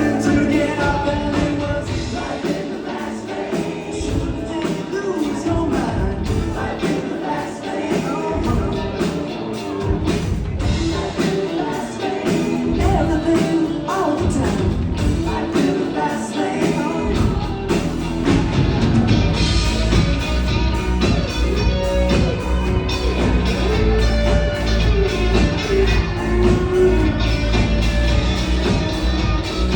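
Live rock band playing with a lead singer. About eighteen seconds in, the full band comes in harder, with heavy bass and drums and brighter cymbals.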